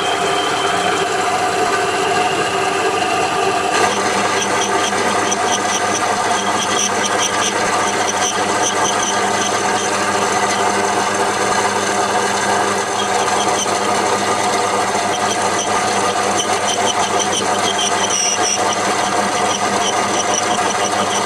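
Metal lathe running steadily while turning a Morse taper 2, with a fluttering, higher scraping of the cutting tool on the work joining in about four seconds in.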